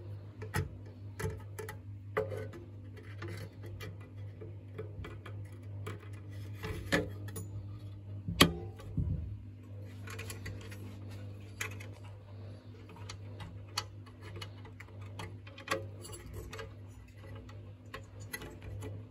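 Irregular sharp clicks and ticks over a steady low hum.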